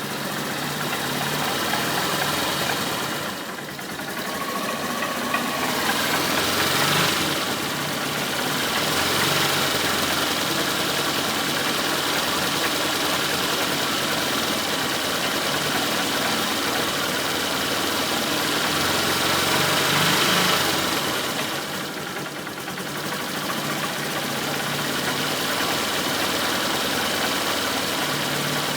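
A vehicle engine running, growing louder twice: once about a quarter of the way in and again about two-thirds through.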